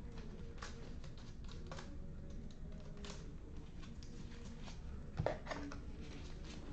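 Scattered light clicks and taps over a steady low hum, with one louder knock about five seconds in.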